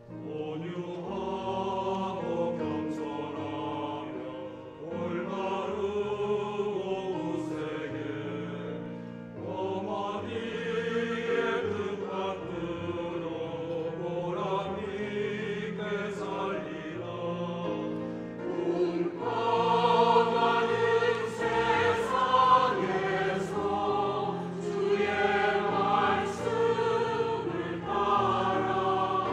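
Mixed church choir singing a hymn in Korean with piano accompaniment, the many voices holding long, swelling notes. It grows louder about two-thirds of the way through.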